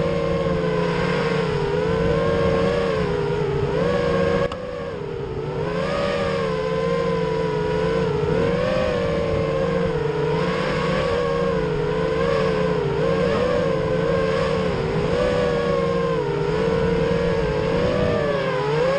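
Racing quadcopter's electric motors and propellers whining steadily, the pitch wavering up and down with the throttle as it flies, with a brief dip in level about four and a half seconds in.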